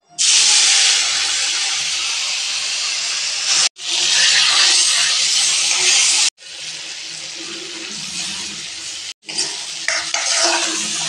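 Hot oil sizzling loudly in a kadai as curry leaves and boiled mutton fry, a steady hiss that cuts off abruptly three times. In the last couple of seconds a spatula scrapes and stirs the frying masala in the pan.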